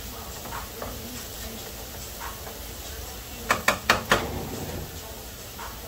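Sausage and onions frying in a pan with a faint sizzle. A little past halfway come four quick, sharp knocks in a row.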